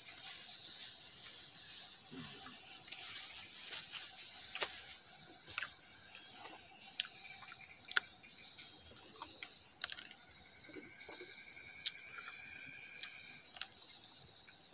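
A person eating up close: scattered sharp smacking and crunching clicks as rice is taken by hand and a raw green vegetable is bitten and chewed, over a steady high-pitched insect buzz.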